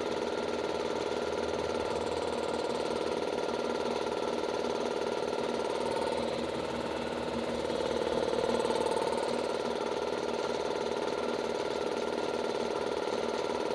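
A 150-litre air compressor's motor and oil-lubricated pump running steadily, building up air pressure in the tank.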